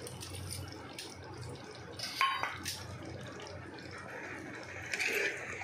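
Steel ladle stirring and scooping thick curry gravy in a clay pot: wet sloshing of the liquid, with a sharp clink of the ladle against the pot about two seconds in. A low steady hum runs underneath.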